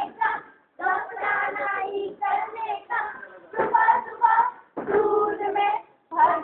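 Children's voices singing a song together, in phrases broken by short pauses.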